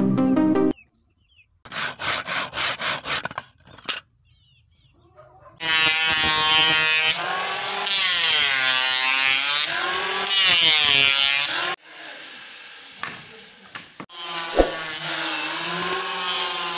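Electric hand planer cutting along a wooden plank, its motor pitch sagging as the blade bites and recovering as it eases off, in two passes with a brief knock between them.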